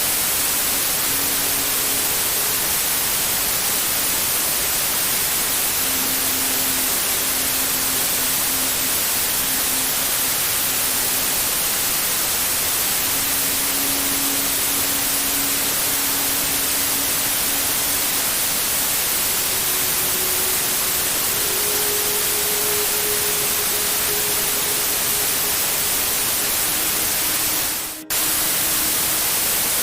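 Steady white-noise hiss, strongest in the high end, which dips out for an instant near the end. Faint low held tones come and go beneath it.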